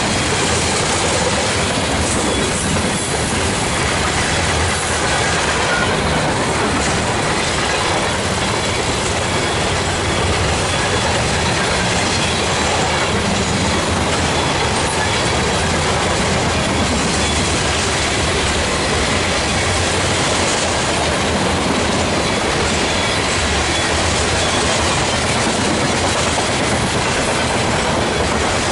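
A train's railroad cars rolling by on the rails: a steady, loud rush of wheels on track that holds even for the whole stretch.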